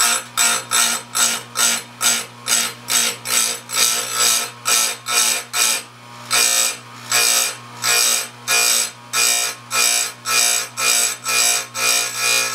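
Electric chainsaw chain grinder: the motor hums steadily while the grinding wheel is jabbed onto a chain tooth in short quick strokes, about two or three a second, each a rasping burst of grinding. There is a brief pause about six seconds in. The short strokes keep the steel from heating up and work the burr off the cutter.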